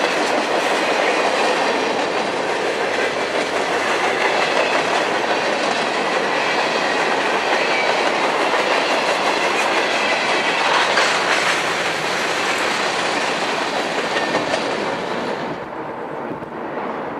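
A train's cars rolling past, with wheels clacking over the rail joints. The sound falls away sharply near the end as the train passes.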